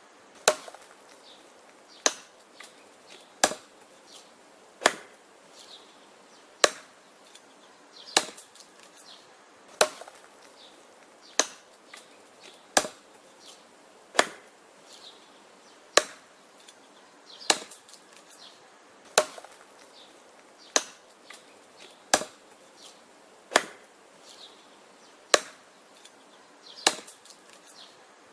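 Wood being chopped: a steady series of sharp chopping strikes, about one every second and a half, with fainter knocks between some of them.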